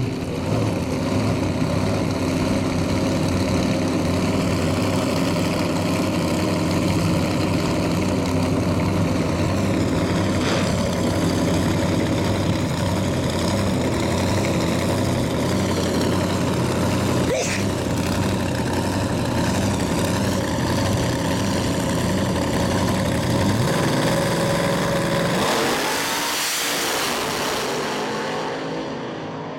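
Two drag-race cars' engines running loudly at the starting line, then launching at full throttle about 25 seconds in, the sound fading as the cars race away down the track.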